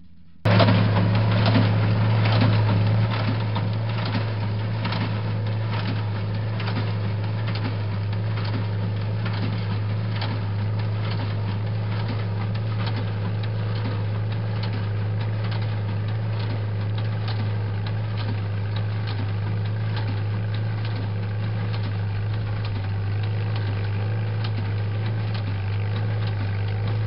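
Tractor engine running steadily while pulling a small square hay baler, with the baler's plunger knocking in a regular rhythm as it packs hay into bales.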